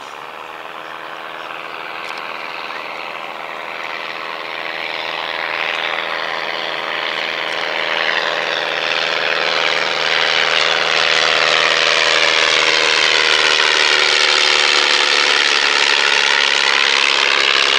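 Propeller-driven piston engines of a Blackburn B-2 biplane and a light monoplane flying in formation. The engine drone grows steadily louder for about twelve seconds as the aircraft approach, then stays loud.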